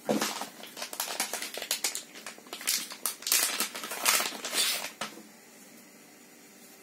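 Crinkling and rustling of a plastic retail bag as it is handled and opened and a soft black phone case is pulled out of it, stopping about five seconds in.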